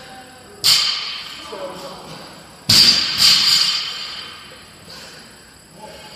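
Feet slapping against a cinder-block wall as an athlete kicks up into kipping handstand push-ups. There are three sharp slaps, one about half a second in and two close together near three seconds, each ringing in a large echoing gym.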